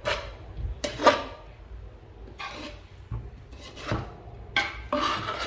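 A spoon scraping and knocking against a cooking pot as cooked biryani rice is mixed, in several separate strokes.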